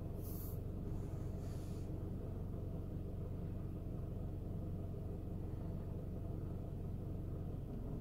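Steady low hum of honey bees around an open hive, with two brief rustles from the hive frame being handled in the first two seconds.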